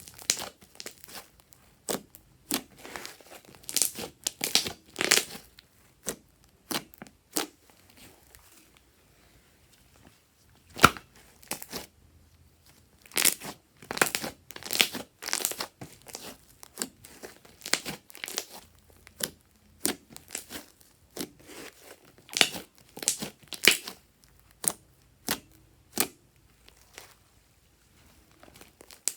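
Fluffy slime being squeezed, stretched and pressed by hand, giving sticky clicks and crackles in irregular bursts with short pauses between.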